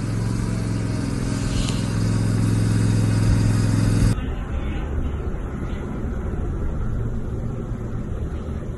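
Zero-turn riding mower's engine running steadily, cutting off abruptly about four seconds in. A lower, rough noise follows.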